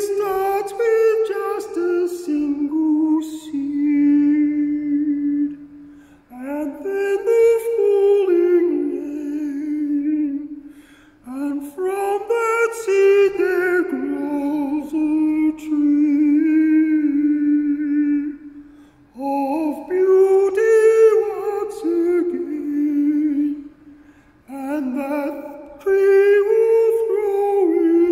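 A man singing long phrases in a high voice. Each of the five phrases starts on a higher note and falls to a long held lower note, with short breaths between.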